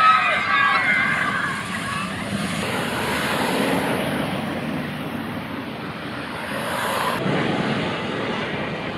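Riders screaming during the first couple of seconds as the Fujiyama steel coaster train runs down the drop, then the train's steady rumble along the track, swelling twice as it passes.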